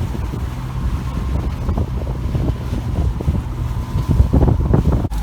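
Boat engine running steadily, with wind buffeting the microphone in gusts that get stronger near the end. The sound cuts off abruptly just before the end.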